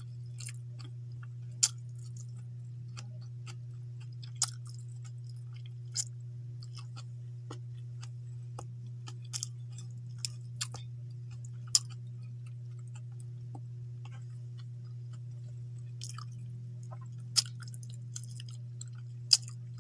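Close-miked eating: a person chewing rice and fish eaten by hand, with sharp wet lip smacks and mouth clicks at irregular moments, about a dozen in all. A steady low hum runs underneath throughout.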